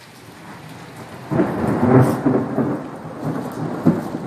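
Thunder rumbling over steady rain: the rumble breaks in about a second in, swells loudest soon after and keeps rolling.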